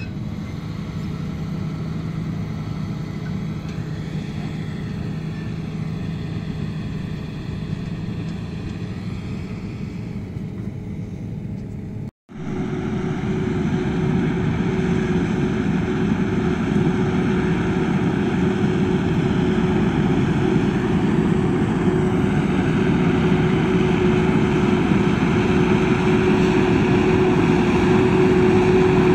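Truck engine running steadily as a tipper truck drives off across a stubble field. After a brief break about 12 s in, a louder, steady sound of a self-propelled forage harvester chopping maize takes over, with a steady whine over the engine, a tractor running alongside with its trailer.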